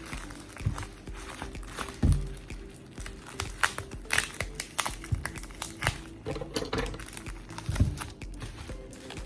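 Background music with frequent short crinkles, clicks and taps of packaging being handled.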